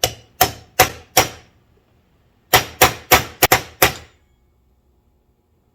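Hammer blows driving a part down into a steering gear box housing until it sits just past the snap ring groove. Four sharp metallic strikes, then after a pause six quicker ones.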